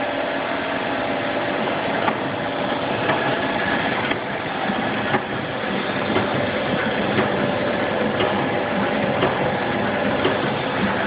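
A machine running steadily during a test run, with a steady mechanical hum and a faint sharp click about once a second.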